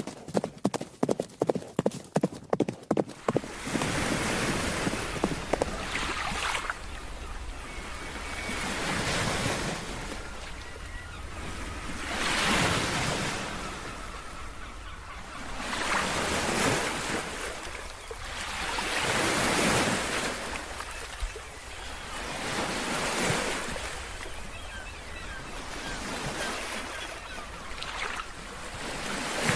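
A horse's hooves clop rapidly, about four beats a second, for the first three seconds. Then waves wash in, swelling and fading every three to four seconds.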